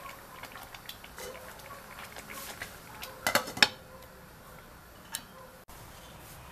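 Glass pot lid set onto a cooking pot, clinking against the rim in a quick cluster about three seconds in, with lighter clattering before it and one more tap near the end.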